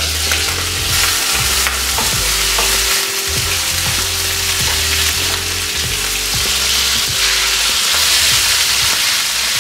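Chicken cutlets frying in olive oil in a pan with a steady sizzle. A metal utensil clicks and scrapes against the pan now and then as the cutlets are cut through and moved.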